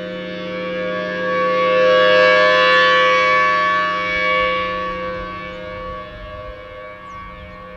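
Federal Signal Thunderbolt 1000T outdoor warning siren sounding at a steady pitch, a two-note chord with many overtones. Its loudness swells to a peak about two to three seconds in and then fades as the rotating siren head sweeps past and turns away.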